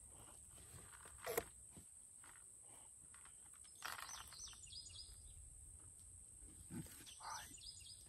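Quiet outdoor background with a steady high hiss and faint bird chirps, and a few soft knocks and handling sounds from a plastic molasses jug being poured into a plastic bucket; the sharpest knock comes about a second and a half in.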